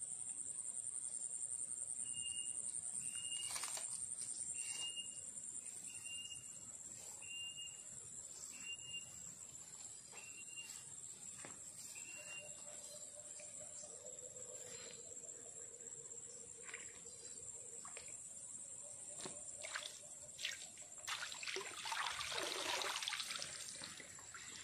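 Shallow stream trickling and flowing over a steady high insect drone, with a short high note repeated about once a second for the first half. Near the end, a louder run of water splashing and pouring.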